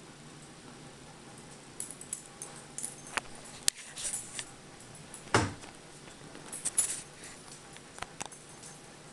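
A Cavalier King Charles Spaniel's claws clicking and scraping on a hard tile floor as it scrambles after a plush toy, in scattered bursts, with one louder thump about five seconds in.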